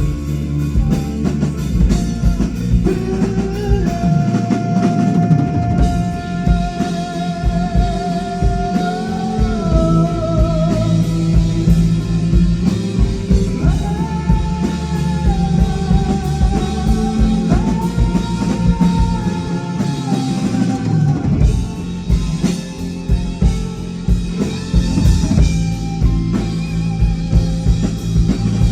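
Live rock band playing a passage without lyrics, with drum kit and guitar and a long held melody line that wavers in vibrato over them.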